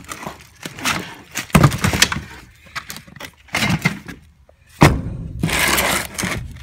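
A run of irregular knocks, clunks and scraping among wooden boards and concrete blocks being handled, with two heavier thuds and a longer scraping rustle near the end.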